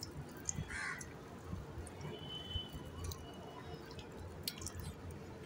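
Salt water poured from a small steel bowl onto rice flour in a pot, with faint drips and trickling.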